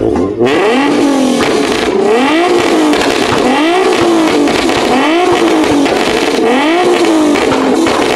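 Infiniti G sedan's V6 revved again and again through a loud aftermarket exhaust with a blue tip, about once a second, each rev rising and falling in pitch.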